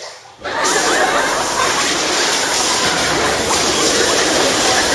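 Cold water gushing into a filled bathtub and churning the surface. It starts suddenly about half a second in and then runs steadily and loudly.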